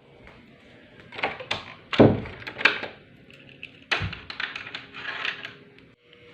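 A string of irregular thumps and knocks. The loudest, a heavy thump, comes about two seconds in, and another strong one about four seconds in.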